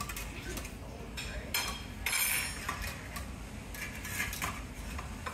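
A series of clinks and clatters from metal serving tongs, trays and dishes at a buffet counter, heard over a steady low background rumble.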